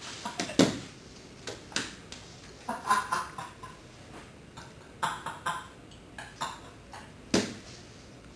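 A man's scattered short bursts of breathy laughter, gasps and coughs, with quiet gaps between them, as he lies on the floor collapsed from laughing.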